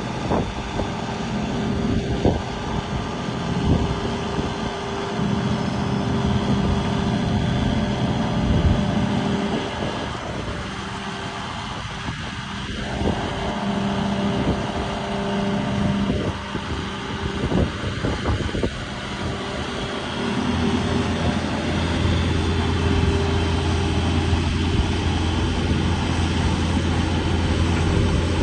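The diesel engine of a 2012 John Deere 250G excavator running steadily, with scattered short knocks. About two-thirds of the way through, a deeper, stronger engine note comes in and the sound grows a little louder.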